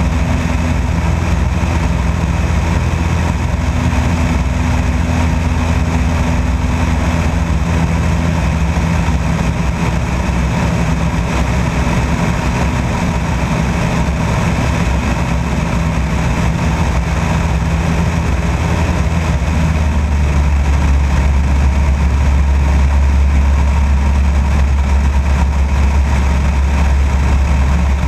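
Light aircraft in flight: steady drone of its engine and propeller over a constant rush of wind noise. About two-thirds of the way through, the low drone shifts in pitch and gets slightly louder.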